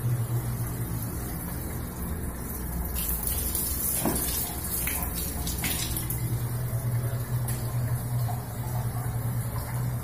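Water running steadily through the line of an LPG instantaneous gas water heater that is lit and heating, over a low steady hum. A few light knocks come in the middle.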